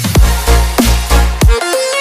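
Background electronic dance music with a heavy, regular bass beat and a synth melody; the bass drops out briefly about one and a half seconds in.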